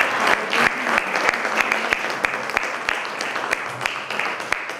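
Audience applauding: many hands clapping together, slowly dying down toward the end.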